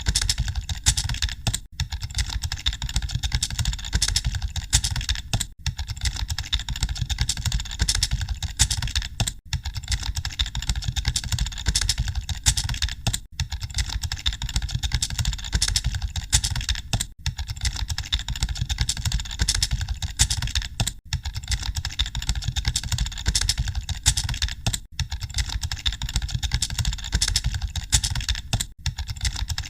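Many computer keyboards typed on at once, giving a dense, continuous clatter of key clicks, as in an exam hall during a typing test. A steady low hum runs underneath, and the clatter dips briefly about every four seconds.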